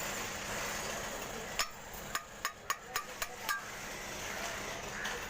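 About seven quick, sharp metallic knocks over a second and a half, as of tapping on the window AC's fan motor while it is dismantled to get at its worn upper bearing. A steady background noise runs before and after.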